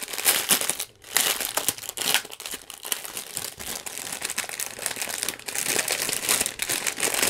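Clear plastic bags of diamond painting drills crinkling as they are handled and opened, with a brief pause about a second in.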